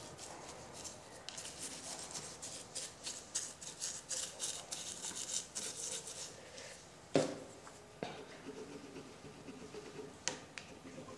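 Paintbrush scrubbing the needle bar and presser-foot mechanism of an antique sewing machine in quick strokes of bristles on metal, clearing old, dried oil. A sharp knock comes about seven seconds in and a lighter one about ten seconds in.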